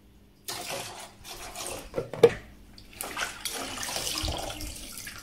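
Liquid floor cleaner and water pouring and splashing into a plastic mop bucket, then a flat mop pad lifted out with water streaming off it back into the bucket. A couple of plastic knocks come about two seconds in.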